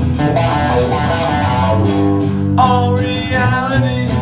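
Live acoustic band music: acoustic guitar strumming, with a held sung vocal line over it from a little past halfway.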